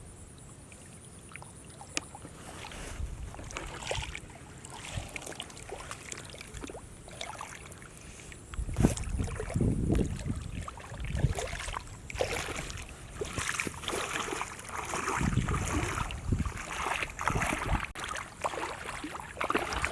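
Water sloshing and splashing in irregular bursts as someone works by hand in shallow water, busier in the second half.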